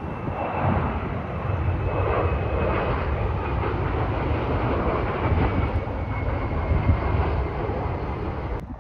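Regional jet on final approach with landing gear down, passing low: a steady jet engine rumble with a faint high whine that slowly falls in pitch. The sound cuts off suddenly near the end.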